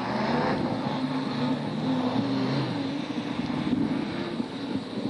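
Several BriSCA Formula 1 stock cars' V8 engines running round the oval, several pitches rising and falling over one another as the cars lap.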